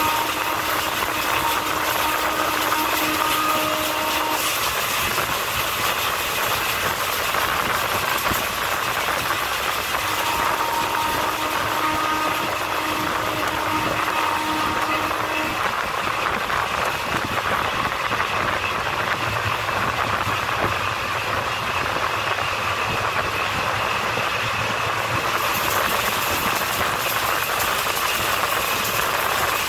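Express passenger train running at speed, heard from the side of a coach: a steady rush of wheels on rail and passing air. A faint steady tone sounds twice, in the first few seconds and again about ten seconds in.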